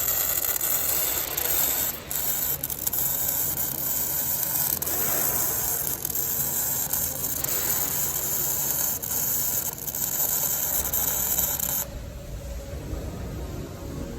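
Electric arc welding on steel: a steady crackling, sizzling hiss that runs for about twelve seconds and cuts off sharply as the arc is broken, leaving a quieter low rumble.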